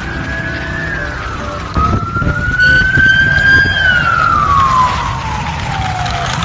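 Ambulance siren wailing, its pitch sliding slowly up and down in long sweeps, with a long fall over the last couple of seconds before it starts rising again.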